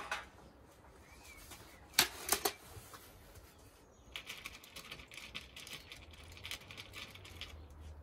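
Handling noise from an airgun between shots: two sharp clicks about two seconds in, then a run of rapid, irregular light clicking and rattling for a few seconds.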